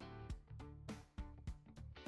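Outro music with guitar over a steady beat, about three drum hits a second.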